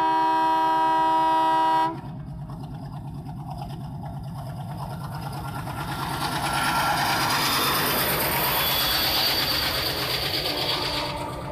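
Diesel locomotive horn sounding a steady chord that cuts off abruptly about two seconds in. Then comes the rumble of the train passing close: first the locomotive's diesel engine, then louder wheel noise as the passenger coaches roll by over a bridge.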